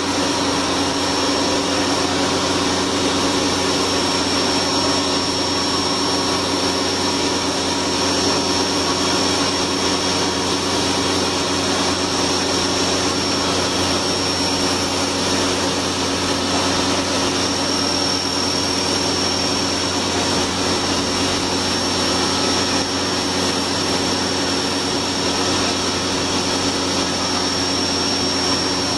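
CNC machining center milling the helical thread of a worm shaft on a fourth-axis rotary table with a small end mill: a steady high spindle whine over even machine and cutting noise.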